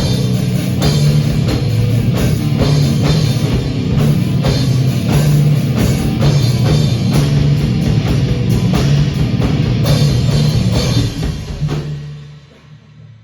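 Rock band jamming on drum kit, guitar and bass, playing loud. The band stops about eleven seconds in, and a last low note rings on and fades out.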